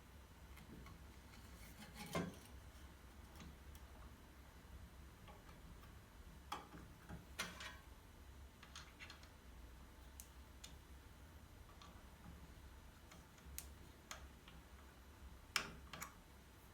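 Near silence over a low hum, broken by a handful of faint, separate clicks and light knocks, the clearest about two seconds in and near the end.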